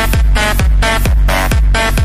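Electronic dance music: a steady kick drum about twice a second under short, repeated synth chords.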